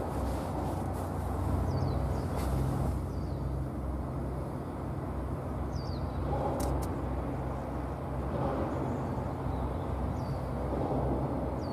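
Low, steady rumble of a Japan Coast Guard patrol vessel's engines as it passes across the water. A rushing noise swells every two to three seconds, and there are a few faint high chirps.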